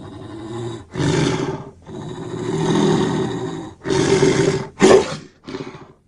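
Blackmoon's roaring and growling sound effects: a run of about six rough roars and growls with short gaps between them, the last two short.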